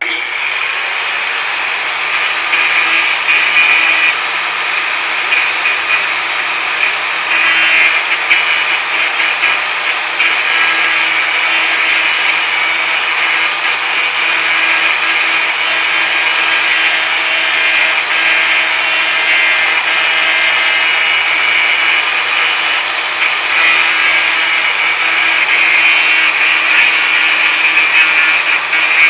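Angle grinder grinding metal without a break, a harsh steady scraping with a high-pitched whine over it, easing and swelling a little as the disc is pressed on.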